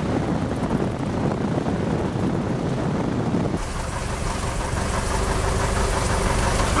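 Cessna 172 floatplane's engine running at low power while taxiing on the water, with water rushing along the float. About three and a half seconds in, the sound changes to a steadier engine hum with more hiss.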